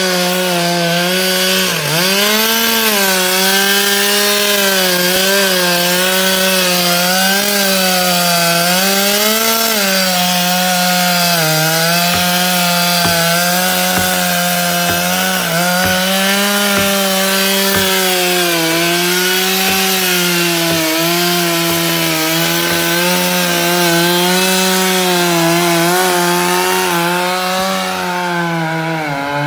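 Long-bar two-stroke chainsaw running under load as it cuts down through a large iroko log. Its pitch wavers as the cut bogs and recovers, dipping sharply about two seconds in and again near the end.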